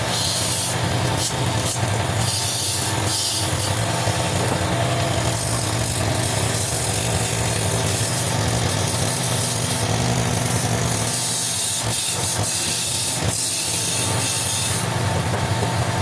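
Wood lathe running with a steady motor hum, while something scrapes against the spinning wood in uneven rasping passes.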